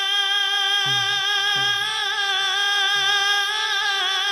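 Male naat reciter singing one long held note through a microphone and PA; the note wavers in pitch near the end.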